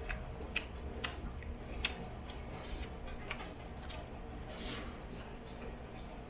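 A person eating: chewing food with the mouth close to the microphone, with several short sharp clicks and a couple of longer soft smacks spread through.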